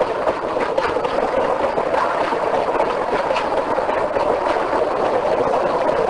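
A train running past: a steady noise of wheels on rail, with a few sharp clicks.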